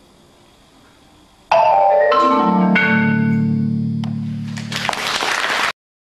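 Musser marimba playing a loud, fast run of notes sweeping downward from high to low, ending the piece on deep low notes that ring on for about two seconds. Near the end, clapping starts, and then the sound cuts off abruptly.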